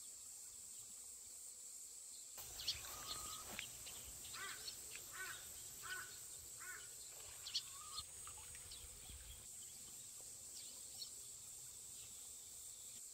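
Faint rural ambience: a steady high insect drone, with small birds chirping repeatedly from about two seconds in.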